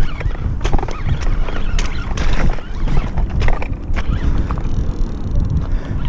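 Steady low wind rumble on a body-worn microphone, with irregular clicks and knocks as a spinning reel is cranked fast on a topwater retrieve.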